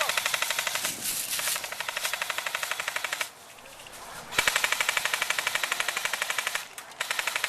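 Airsoft guns firing long full-auto bursts, a rapid, even stream of shots. Three bursts: one runs for about three seconds, then after a break of about a second another runs for about two seconds, and a third starts after a short pause near the end.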